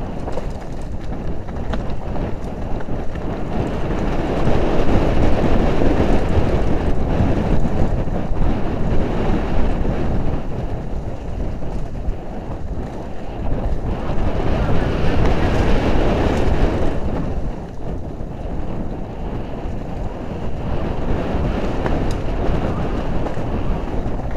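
Wind buffeting a helmet-mounted camera microphone, with the rumble and rattle of a mountain bike rolling fast down a rough dirt trail over leaves and stones. The noise swells and eases several times.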